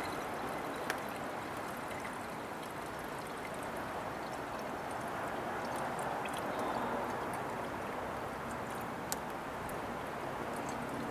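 Coolant pouring in a steady stream from a plastic jug into a pickup's coolant reservoir, with a little gurgling as the cooling system is refilled.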